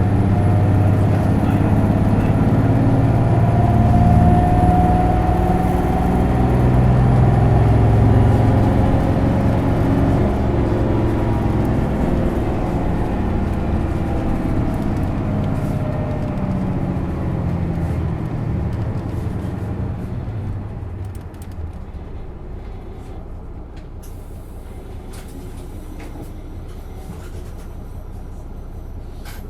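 Onboard running sound of an Isuzu Erga PKG-LV234L2 city bus's inline-six diesel with a 6-speed manual gearbox, pulling hard under heavy throttle. It is loudest for the first several seconds, then gradually eases off, drops away about three-quarters of the way through, and settles to a lower steady running sound.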